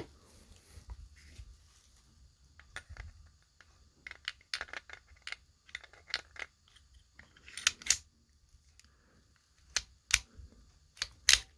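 Star BKS 9mm pistol being reassembled by hand: scattered sharp metallic clicks and clacks of its steel parts, with several louder clacks in the second half.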